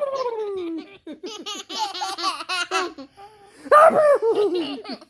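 Toddler laughter: a long falling squeal, then quick bursts of giggling, and a louder fit of laughing about four seconds in.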